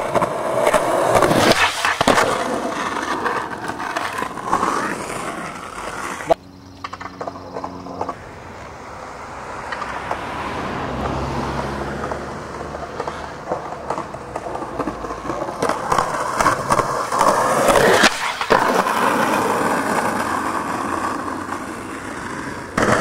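Skateboard wheels rolling over rough concrete, with several sharp clacks of the board hitting the ground. There is a quieter stretch in the middle.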